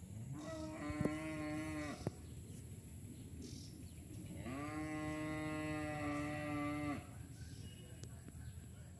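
Cow mooing twice: a shorter call of about a second and a half that rises at its start, then a longer, steady call of about two and a half seconds.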